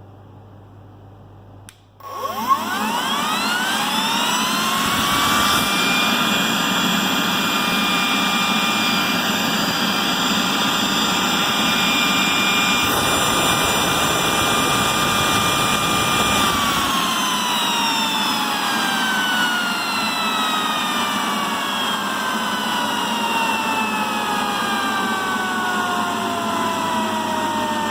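Ametek 119152-01 blower motor switched on with a click, spinning up with a rising whine over about two seconds and then running steadily at speed. About sixteen seconds in it is switched off and winds down with a long falling whine.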